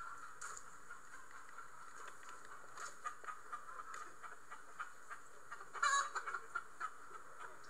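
Chickens clucking faintly in the background, with one louder squawk about six seconds in. Light wooden knocks come from a hinged chicken-wire door on a plywood coop as it is lifted and handled.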